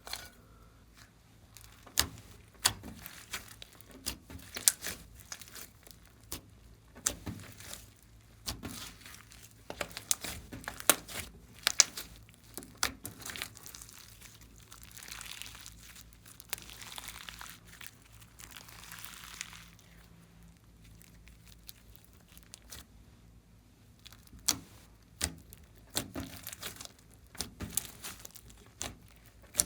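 Glossy slime being squished and kneaded by hand: irregular sticky pops and crackles, with a softer crackling hiss for a few seconds past the middle.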